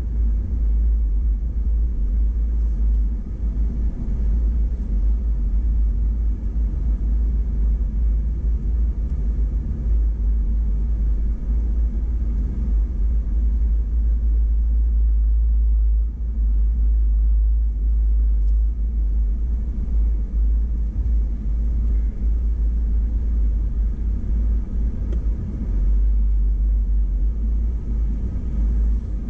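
Off-road vehicle's engine and tyres on a dirt trail, a steady low rumble heard from inside the cabin while it drives slowly.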